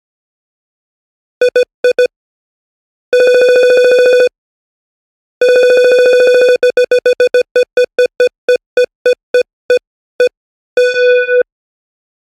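Synthesized game-show beep sound effects, one buzzy electronic tone repeated in different patterns: three short beeps, a sustained pulsing buzz about a second long, then a fast run of beeps that gradually slows down, ending in a short warbling tone.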